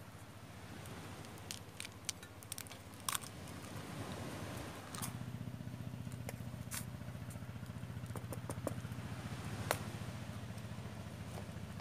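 Sharp clicks and scrapes from a wooden spatula working noodles in a steel pot over a crackling wood fire, over a steady low hum that grows louder about five seconds in.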